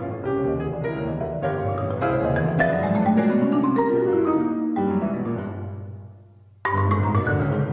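Marimba played with mallets together with a grand piano in a fast duo passage, with a rising run in the low notes. The music dies away about six seconds in, then both instruments come back in suddenly and loudly.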